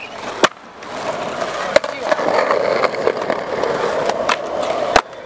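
Skateboard urethane wheels rolling on concrete with a steady rumble, broken by sharp clacks of the board striking: about half a second in, near two seconds, and a loud one near the end.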